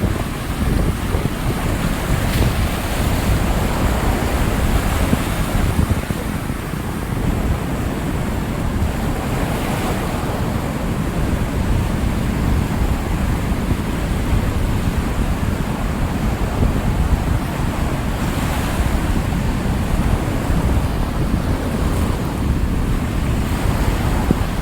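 Rough Atlantic surf: waves breaking and rushing in a continuous loud wash, with a few swells of spray noise, and wind buffeting the microphone.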